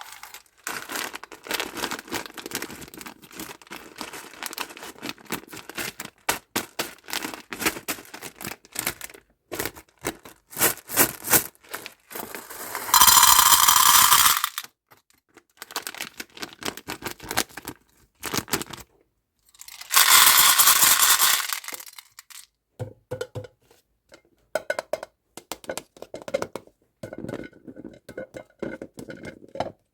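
Plastic candy wrappers and packaging crinkled and torn open by hand, a dense run of crackles. Two longer, louder tearing stretches come about halfway through and again about two-thirds through, followed by sparser clicks and rustles.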